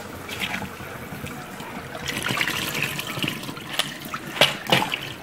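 Rinse water trickling and draining off a bowl of brass cartridge cases into a stainless steel sink, with a few sharp clinks of the brass cases in the second half.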